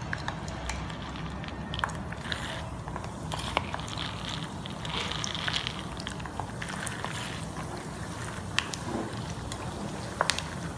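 Raw peanuts deep-frying in hot oil in a wok: a steady sizzle and crackle that swells around halfway as more nuts go in, with sharp clinks of the perforated steel skimmer and nuts against the metal pan.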